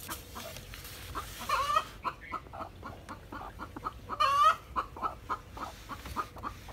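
Broody hen on her nest of eggs clucking in a string of short notes, with two longer drawn-out calls about one and a half and four seconds in.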